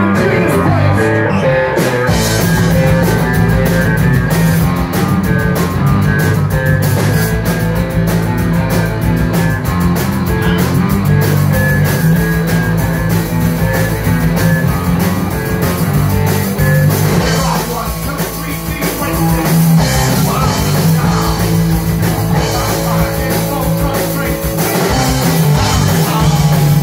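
Live rock band playing: electric guitars, bass guitar and drum kit, with a man singing into a microphone. The opening is guitar-led, and the full kit with cymbals comes in about two seconds in.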